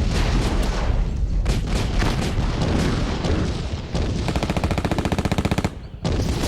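Sound-design war-zone scene: a barrage of gunshots and booms over a low rumble, then, past halfway, a rapid burst of machine-gun fire that stops suddenly.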